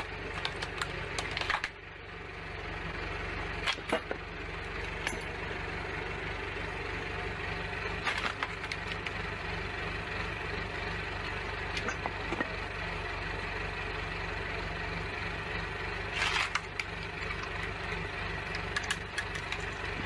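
Small vertical log splitter running with a steady low hum while its four-way wedge forces through a round of wood, the wood giving sharp cracks several times as it splits apart.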